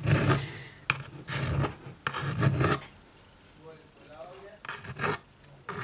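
Fingers rubbing, pressing and scraping along the edge of an iPad's aluminium frame and glass in irregular strokes, with a sharp click about a second in: the new touchscreen glass being pressed and seated into the frame at the corner by the power button.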